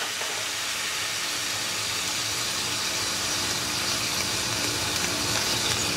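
Stock and water hissing and sizzling steadily in a hot skillet, deglazing the pan drippings.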